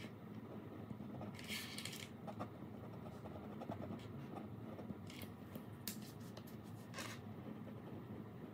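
Ballpoint pen scratching across paper in a few short strokes, the longest about a second and a half in, with shorter ones around five to seven seconds, over a low steady hum.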